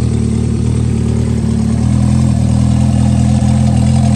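Honda CB500 air-cooled four-cylinder motorcycle engine idling steadily through its four-into-one exhaust, being warmed up on its first run after decades laid up.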